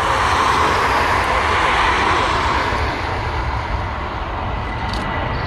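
Boeing 737 twin jet engines running steadily as the airliner rolls along the runway, a steady jet roar with a low rumble underneath.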